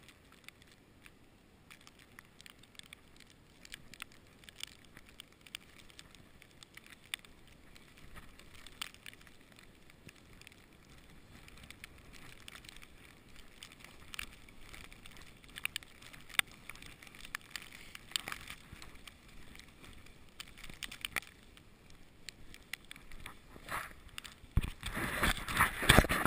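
Crunching and crackling of snow underfoot while walking through a snowstorm, as many small irregular clicks. Near the end, strong wind gusts start buffeting the microphone with a loud rumble.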